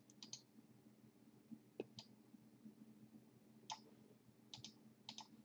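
Faint computer mouse clicks, about nine scattered through, some in quick pairs, over a faint steady hum.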